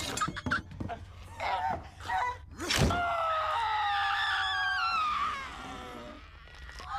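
Scuffling knocks and thumps, then a sharp thud just before three seconds in. A woman's long, high scream follows, lasting about two and a half seconds and sliding down in pitch at its end, over a low steady hum.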